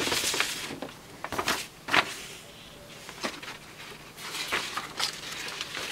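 Sheets of paper rustling as they are drawn out of a paper envelope and handled, then a few short crackles spread through the rest of the time.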